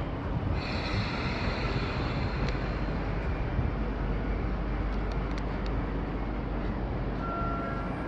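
Sotetsu 8000-series electric train pulling slowly into the station platform, a steady rumble of wheels and running gear. A few light clicks come about five seconds in, and near the end a thin steady high whine joins in as the train slows.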